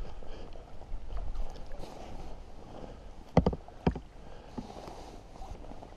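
Water sloshing and splashing as a landing net holding a trout is drawn through the shallows and lifted out, with two sharper splashes about three and a half seconds in. Wind rumbles on the microphone in the first couple of seconds.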